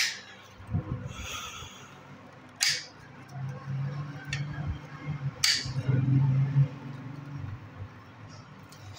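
Old copper winding being cut and pulled out of a pump motor's steel stator with a metal tool: sharp metallic clicks and knocks, three loud ones about two and a half seconds apart, with scraping in between. A low hum sounds through the middle, from about three and a half to six and a half seconds in.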